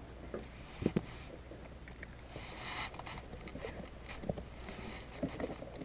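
Handling noises as a bass is unhooked with forceps in a small fishing boat: rustling and light clicks, with two sharp knocks about a second in and more knocks near the end.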